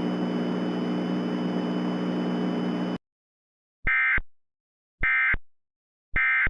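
A steady hiss with a low hum that cuts off about three seconds in, followed by three short, identical squawks of digital data about a second apart: the Emergency Alert System SAME end-of-message (EOM) bursts that close the alert.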